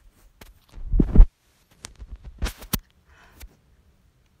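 A muffled low thump about a second in, followed by a few sharp clicks and knocks.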